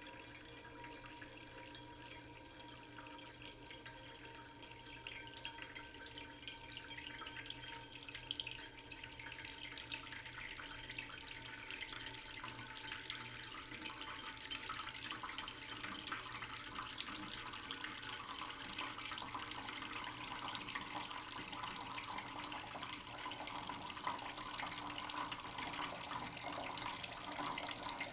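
Tap water running slowly into a cooking pot in a sink, a steady splashing that grows brighter and slightly louder as the pot fills.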